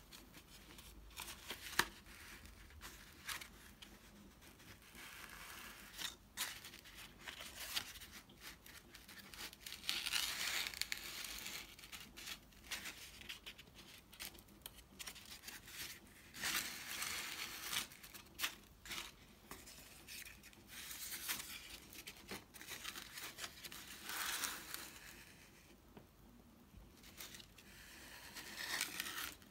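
Paper pages of a small hand-made concertina sketchbook being unfolded, folded back and slid about on a wooden table: scattered rustles and light ticks of paper, with a few longer swishes as whole sections are opened out.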